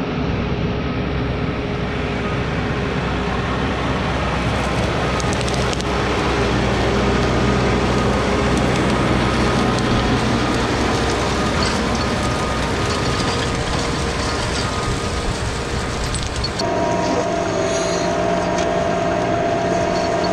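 New Holland T4.100 tractor's diesel engine working under load as it pulls a five-shank chisel plow through the field, growing louder as the tractor comes close by. Near the end the sound switches abruptly to a steady, closer engine drone with clearer tones.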